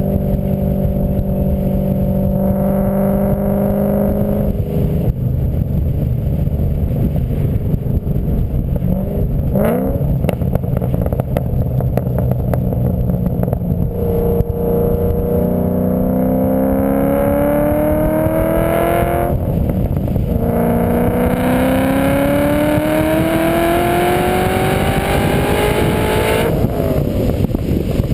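Car accelerating in second and third gear over steady road noise, with a whining tone that rises in pitch with speed, breaks off, then rises again. This is the drivetrain gear noise being tested.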